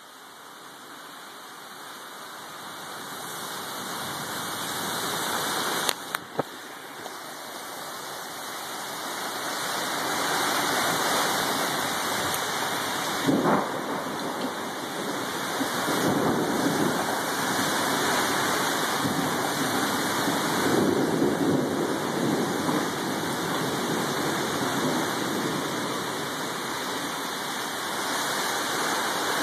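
Heavy wind-driven rain of a thunderstorm, a dense rushing hiss that builds over the first ten seconds and then stays loud, with gusty surges. Two sharp clicks about six seconds in.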